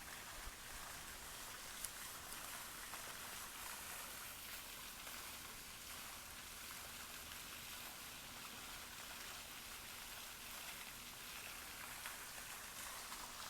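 Steady patter of rain, with a couple of sharper drop ticks near the start.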